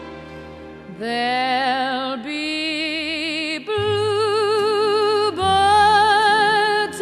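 Music: a slow 1940s-style ballad in which a woman sings a run of long held notes with wide vibrato over an orchestra, beginning about a second in.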